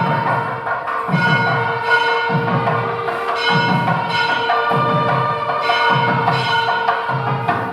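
Background music with ringing bells over a steady drone and a low beat about once a second.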